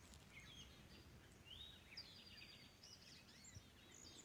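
Faint birdsong: several birds chirping and whistling, with short rising and falling notes throughout.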